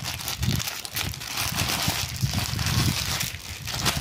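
Plastic courier mailer and the plastic bags inside it crinkling and rustling continuously as hands pull the package open and draw the wrapped clothes out.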